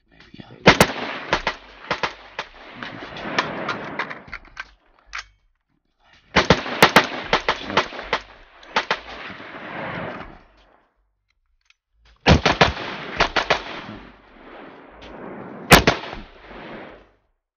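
Rapid gunfire from a 14.5-inch 5.56 AR-15 with a Battlecomp 51.0 compensator: three strings of quick shots, each several seconds long, with short pauses between the strings. Each shot rings out with echo that fills the gaps between shots.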